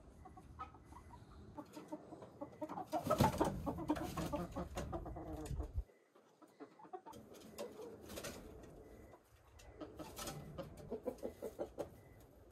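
Chickens clucking as they settle onto the roost for the night, loudest a few seconds in, with a brief lull around the middle.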